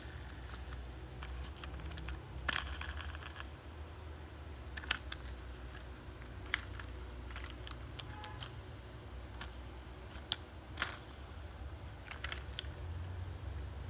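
Hard plastic toy truck and trailer being handled: irregular light clicks and taps of plastic parts and wheels knocking together, a few sharper than the rest, over a low steady hum.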